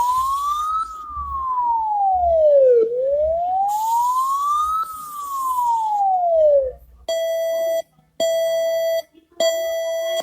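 Emergency alarm siren wailing, its pitch rising and falling twice in a slow cycle of about four seconds. It then stops, and an alert tone sounds three long beeps about a second apart.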